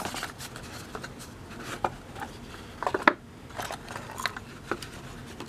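An old cardboard lure box being opened and a plug lure handled inside it: scattered scrapes and light clicks, the sharpest about three seconds in.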